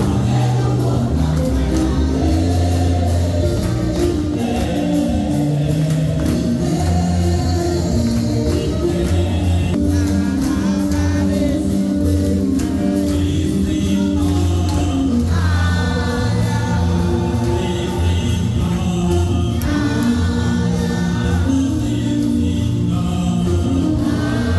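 Gospel music: a choir singing over instrumental accompaniment with sustained bass notes.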